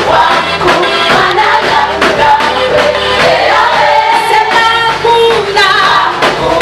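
A choir singing a Swahili gospel praise song with band accompaniment over a steady beat.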